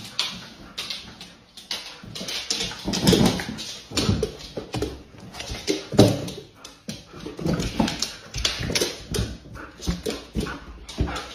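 A husky making short, repeated vocal calls, roughly one every second or so, with a sharper knock about halfway through.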